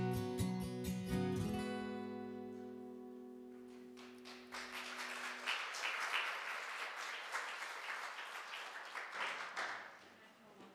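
Acoustic guitar strumming ends on a final chord that rings out for a few seconds, then applause starts about four and a half seconds in and fades near the end.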